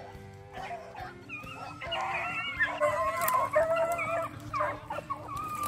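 A pack of rabbit-hunting hounds baying on a rabbit's trail, several dogs voicing at once. The chorus starts about a second in and is loudest in the middle.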